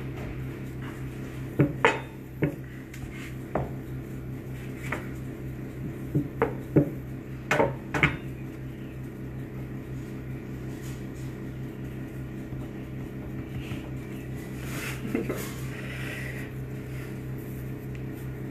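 Light knocks and clicks of kitchen tools handled on a plastic board while rounds of sablé dough are pressed out by hand, over a steady low hum. The knocks come in a cluster in the first eight seconds, then give way to quieter handling.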